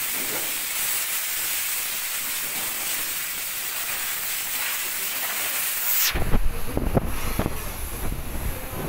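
A steady hiss for about six seconds, then a low, uneven rumble with a few sharp knocks.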